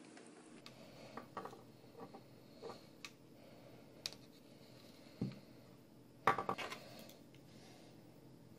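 A car part and small objects handled by hand on a wooden tabletop: faint clicks and taps, a knock about four seconds in, a thud a second later and a short clatter about six seconds in.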